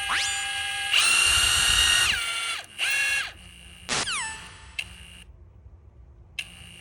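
Bauer 20 V brushless cordless impact wrench run free with no load under several trigger pulls. Its motor whine climbs in pitch, runs at full speed for about a second and winds down, followed by two shorter bursts and a couple of brief blips.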